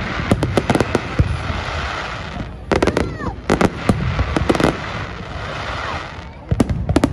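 Fireworks display: aerial shells bursting in quick volleys of sharp bangs over a constant crackle of sparks. The bangs come in clusters in the first second, from about two and a half to four and a half seconds in, and again near the end.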